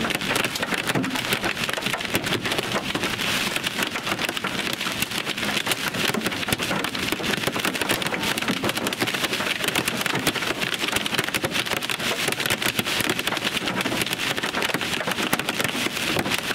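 Heavy rain pelting the roof and windshield of a car, heard from inside the cabin: a dense, continuous, loud patter of drops.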